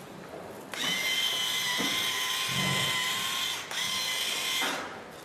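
Pepper mill grinding pepper: a steady whirring grind starting under a second in and lasting about three seconds, then a short pause and a second grind of about a second.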